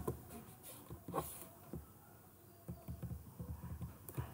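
Faint, scattered clicks of a computer keyboard and mouse, one sharper click about a second in and a short run of soft taps near the end, over quiet room tone.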